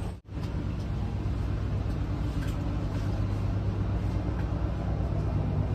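Steady low engine hum of a coach bus, heard inside the passenger cabin. The sound drops out briefly just after the start.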